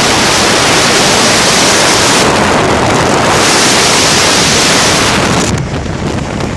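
Loud, steady wind rushing and buffeting over the microphone, easing off somewhat about a second before the end.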